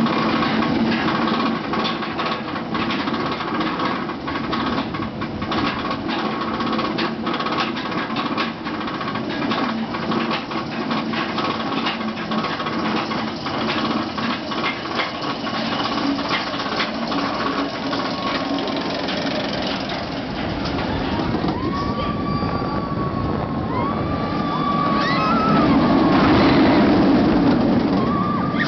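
Bolliger & Mabillard inverted roller coaster on its chain lift hill: rapid clattering clicks from the chain and anti-rollback over a steady mechanical hum as the train climbs. Near the end riders whoop and yell, and the rush of the train and wind grows louder as it drops into the first inversion.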